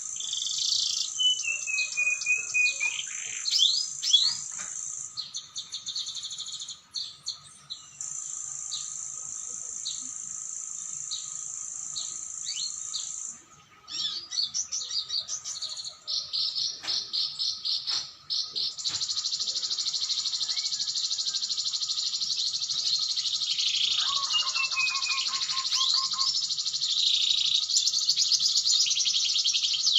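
Canary singing: long, rapid high trills held for several seconds at a time, broken by chirps and quick sweeping notes, with a faint steady tone underneath.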